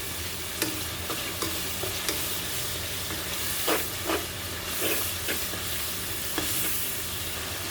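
Spice paste of ground spices and ginger-garlic paste sizzling in hot oil in a pan as it is stirred and fried down, with a spatula scraping the pan now and then.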